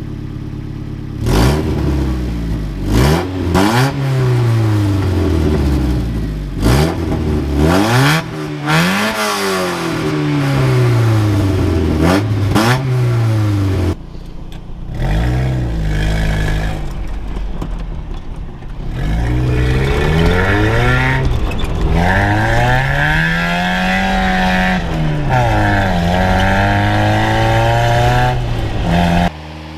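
Mazda Miata's four-cylinder engine and exhaust revving over and over, the pitch climbing and dropping with each rev. A few sharp clicks come in the first seconds.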